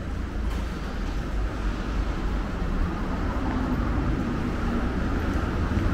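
Street traffic noise: a steady low rumble of cars passing on a city road, with a faint hum from a passing vehicle about midway.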